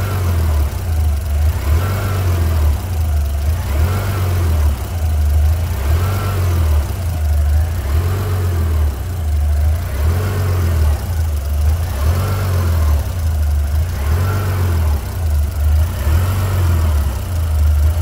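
Mitsubishi Pajero NP's 3.8-litre V6 idling roughly, its speed swelling and sagging about every two seconds: a hunting idle that comes from an internal fault in the mass airflow sensor (code P0100).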